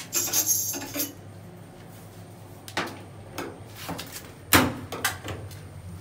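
A brief rustle, then five or six sharp clicks and knocks of hard plastic as a hand works at a front-loading washing machine's drain-filter cover flap, the loudest about four and a half seconds in.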